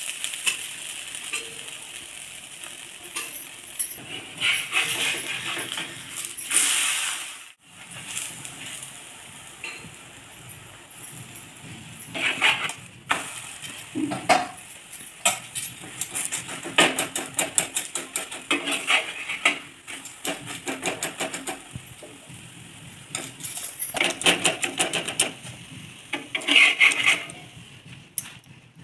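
Metal utensil scraping and clinking on a black iron tawa in repeated bursts while a paratha fries in oil, over a steady low sizzle.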